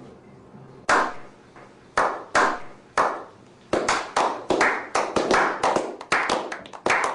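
Sharp clap-like percussive hits, each with a short ringing tail, from an animated film's dance-scene soundtrack: a few single hits spaced about half a second to a second apart, then from about four seconds in a quicker, uneven run of roughly three hits a second.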